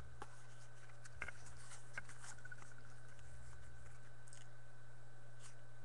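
Faint ticks and scrapes of trading cards being handled and slid over one another, over a steady low hum.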